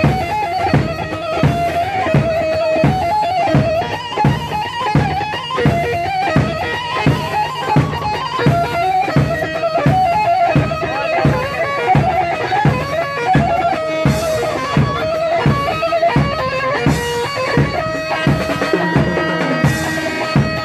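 Bağlama (long-necked saz) playing a lively melody in makam saba, its plucked notes over a steady beat of about three strokes a second.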